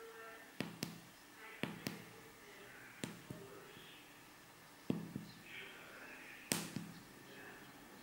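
Fingers pressing keys on a 4x4 membrane keypad: a series of sharp clicks, mostly in pairs about a quarter second apart, the loudest about six and a half seconds in.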